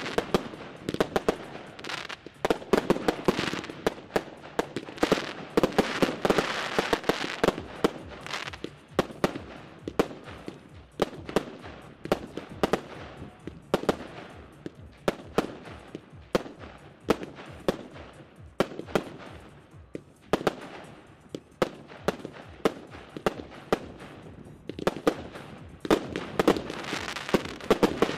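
Aerial fireworks going off in a rapid barrage: a dense string of sharp bangs, several a second, with crackling between them and a few short lulls.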